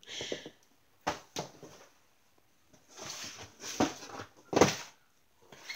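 Cardboard product boxes being handled and put down: several separate knocks and rustles, the loudest about four and a half seconds in.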